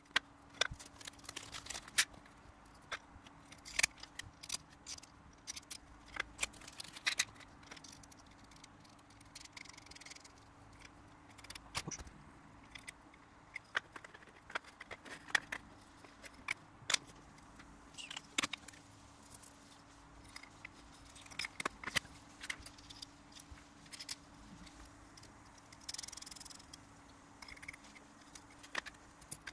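Irregular small clicks, taps and clinks of parts being handled and fitted: wooden strips, steel ball bearings on bolts and plastic spacers knocked together and set down on a plywood board. A faint steady hum runs beneath.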